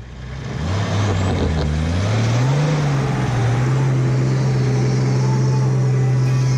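Four-wheel drive's engine revving under load while towing a camper trailer out of soft sand over traction boards: the pitch climbs about two seconds in, then holds steady, with the hiss of spinning tyres and thrown sand behind it.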